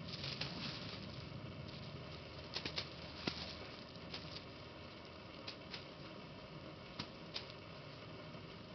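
Steady outdoor wind hiss with scattered short, sharp snaps of light nylon kite fabric flapping, three in quick succession about two and a half seconds in and single ones later.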